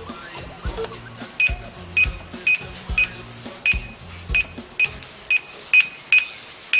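Paragliding flight computer's audio synthesizer giving its thermal-guidance signal: a string of short high electronic beeps, about two a second and coming a little faster toward the end, over low stepped tones in the first couple of seconds.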